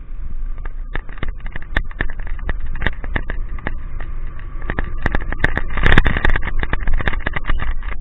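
Rain hitting a wet camera on a moving vehicle: many sharp, irregular ticks of drops striking the camera over a steady low rumble of engine, road and wind, growing louder about six seconds in.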